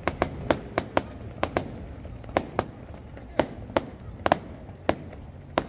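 Fireworks display: a rapid, irregular string of sharp bangs, about two or three a second, over a steady low background rumble.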